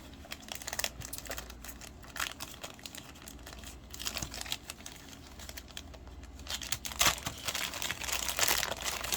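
Packaging crinkling and tearing as a paintbrush is worked free of its wrapping by hand, in scattered short crackles that get busier and louder in the last couple of seconds.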